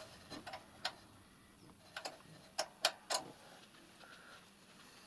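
About half a dozen light, sharp clicks and taps, irregularly spaced and bunched in the first three seconds or so, over faint room tone.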